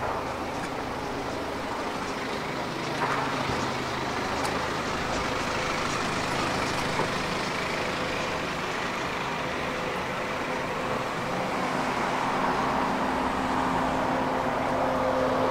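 Road traffic: motor vehicle engines running, with a steady hum that grows louder near the end.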